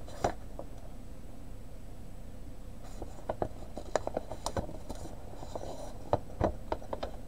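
Large paper cross-stitch chart rustling and crinkling in the hands, a few soft crackles, mostly in the second half.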